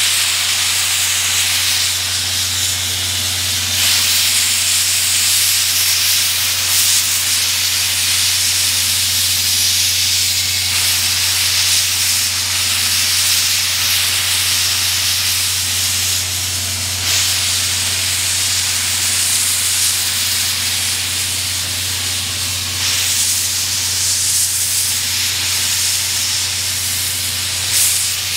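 Steam locomotive, the C56 160, letting off steam with a loud, steady hiss that swells a little now and then, over a steady low hum.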